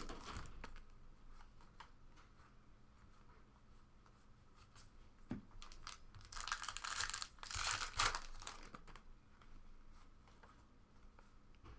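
Trading-card pack wrappers being torn open and crinkled, with the loudest stretch of tearing and crinkling from about six to eight and a half seconds in.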